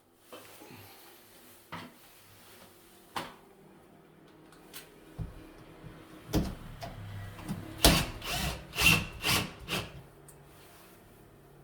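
Work noises from fitting a fixture: a few separate clicks, then a cluster of louder knocks, scraping and rattling about six to ten seconds in.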